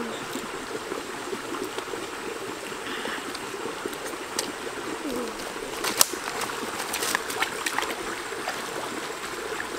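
Shallow stream running steadily over rocks, with a few scattered sharp clicks about six to eight seconds in.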